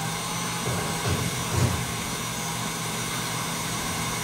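KitchenAid Artisan stand mixer running steadily with a motor hum and whine, beating eggs, sugar, yogurt and oil into a pale foam for a cake batter.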